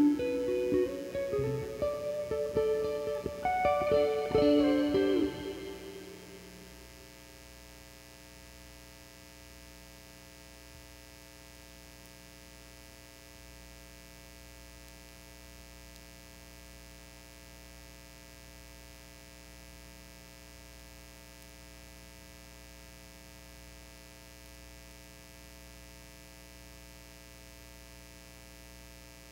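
A plucked string instrument plays notes and chords for about six seconds, then fades out, leaving a steady low hum.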